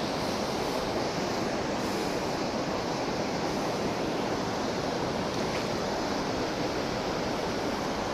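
Steady rush of flowing stream water, an even hiss with no change in level.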